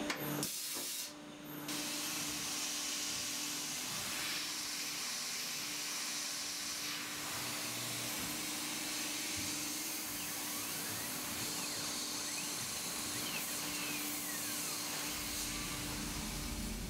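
CNC milling of aluminium on a Tormach PCNC 770: a steady hiss from the nozzle blowing at the cut, over the spindle's hum and the end mill's cutting noise. The sound dips briefly about a second in, then runs on evenly.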